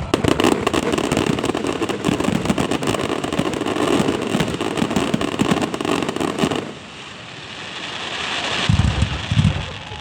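A fireworks display: a dense, rapid crackling of many small bursts for about six and a half seconds, which stops suddenly, leaving a softer rising hiss and low rumbles.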